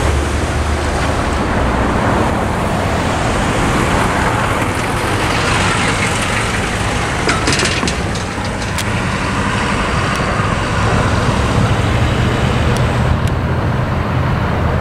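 Road traffic: cars and a van driving across a railroad grade crossing, steady tyre and engine noise, with a short run of clunks about halfway through as a vehicle rolls over the rails.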